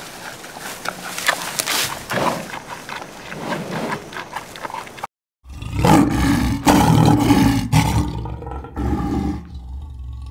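Giant panda chewing bamboo, a run of crisp cracks and crunches. After a short break, a lion roars and growls in a series of deep strokes, the loudest part.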